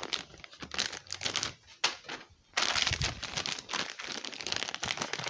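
Plastic treat packets crinkling, with small clicks and knocks of items being moved about, as a hand rummages through a drawer. Quick irregular bursts that turn into an almost unbroken rustle about two and a half seconds in.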